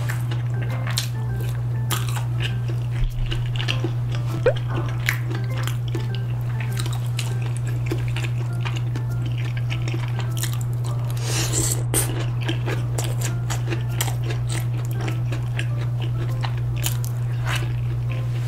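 Eating sounds: crisp bites into fried snacks coated in creamy rosé tteokbokki sauce and wet chewing, many short crunchy clicks, over steady background music.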